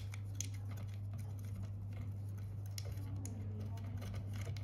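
Faint scattered clicks and small taps of screws and a 3D-printed plastic box being handled against a metal printhead cover, over a steady low hum.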